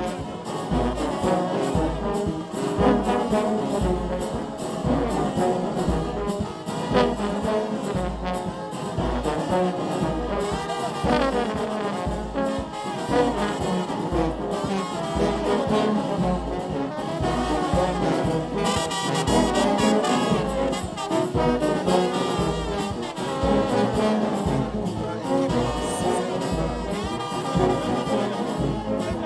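Brass band playing lively music over a steady low drum beat.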